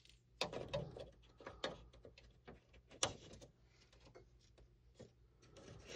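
Sparse small clicks and scrapes of a plastic model-kit part being cut and trimmed to fit, with one sharper click about three seconds in.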